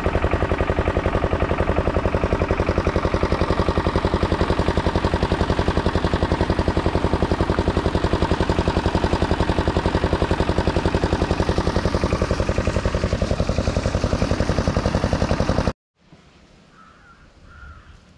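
An engine running steadily with a fast, even beat. It cuts off suddenly near the end, leaving only faint background sound.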